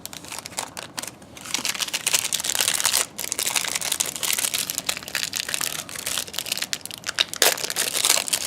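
Crinkling and rustling of a plastic trading-card pack wrapper as cards are handled and pulled out, with a couple of short pauses.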